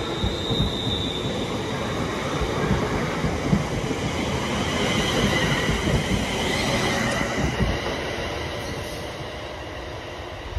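ScotRail electric multiple-unit train running past the platform at speed: a steady rumble of wheels on rails with high whining tones over it, easing off in the last couple of seconds.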